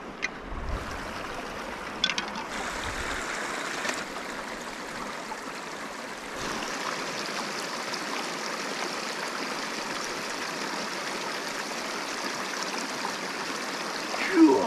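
Shallow stream water running and trickling among boulders, a little louder from about six seconds in, with a few light clicks in the first four seconds.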